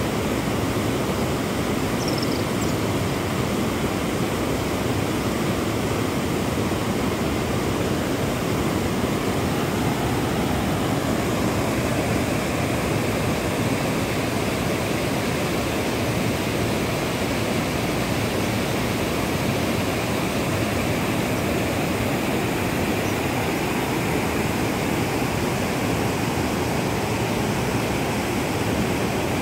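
Water rushing steadily over a low weir and down through rocky rapids: a continuous, even rush of white water.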